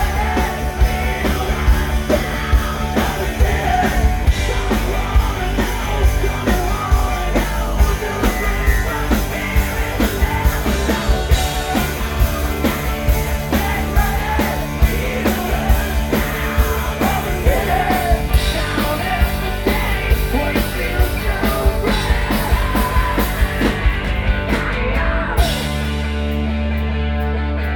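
Hard-rock band playing loudly, with singing over a steady drum beat. About two seconds before the end the drums stop and a single chord is held.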